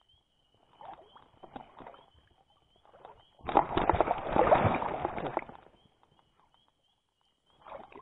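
Wading through shallow stream water: a couple of faint sloshes, then about two seconds of louder splashing around the middle.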